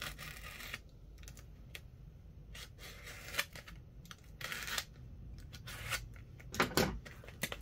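A cardboard parcel being handled and opened by hand: irregular scrapes, taps and rustles of the box and its packaging, louder near the end.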